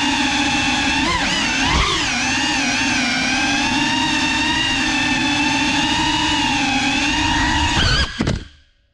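Small FPV drone's brushless motors and propellers whining steadily, the pitch rising and falling briefly about a second in with throttle changes. Near the end the motors cut out abruptly as the drone crashes.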